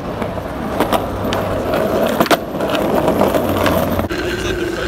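Skateboard rolling on concrete sidewalk: a steady rumble of the wheels on the rough pavement, with several sharp clacks as they cross the slab joints.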